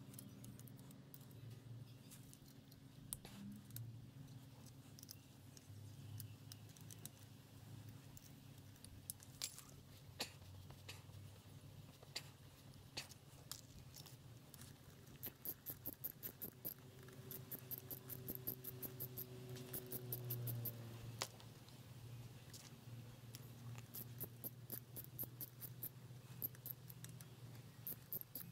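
Faint, scattered metallic clicks and clinks of hand tools and small engine parts being handled on a Honda XL250 crankcase during disassembly, with quicker runs of clicks in the middle and near the end, over a low steady hum.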